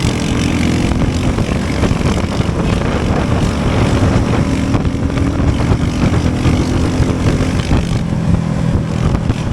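Motorcycle engine running steadily under way, with a constant rush of air noise over it.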